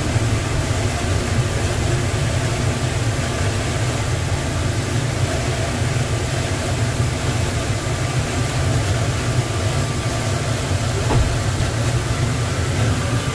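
Steady low rumble inside a car of the Atlanta airport Plane Train, a rubber-tyred automated people mover, as it runs at speed through its tunnel.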